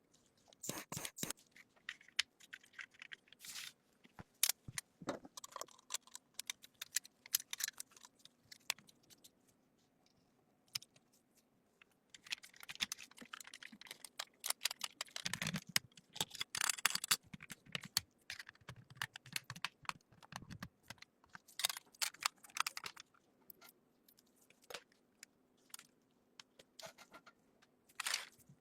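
Irregular small clicks, taps and short scraping rasps of hand work, busiest around the middle.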